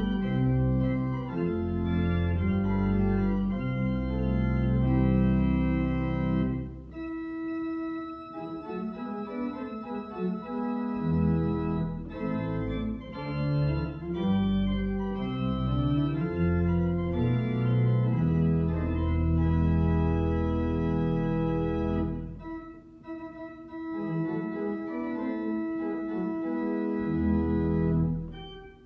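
Church organ playing an instrumental piece: sustained full chords over long held bass notes, changing chord every second or so. The bass drops out for lighter passages about seven seconds in and again about three-quarters of the way through.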